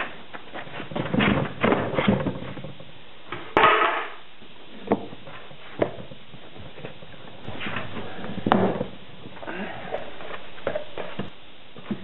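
Wooden sand-casting flask knocked and pulled apart by gloved hands, with greensand scraped and dug through: a string of sharp wooden knocks, the loudest about three and a half seconds in, between stretches of gritty scraping.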